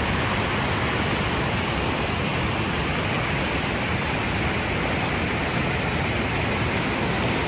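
Rushing water of a waterfall and creek cascades, a steady, unbroken rush.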